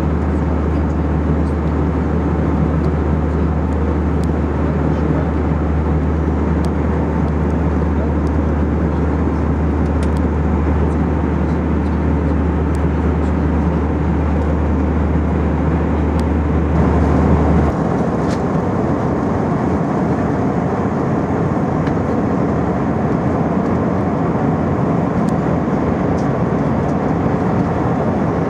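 Steady in-flight cabin noise inside an Airbus A319: the constant roar of its CFM56-5B5 jet engines and the airflow around the fuselage. A deep hum beneath it drops away abruptly partway through, and the roar carries on unchanged.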